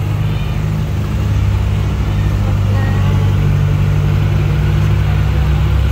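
Jeep engine running steadily at low speed, heard from on board, a low even drone that picks up slightly about a second in.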